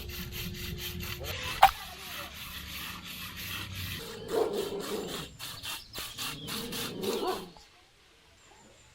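A ladle scraping round an iron kadai in quick, even strokes, about three or four a second, while milk is stirred and reduced for palkova, with one sharp knock about a second and a half in. The scraping stops near the end.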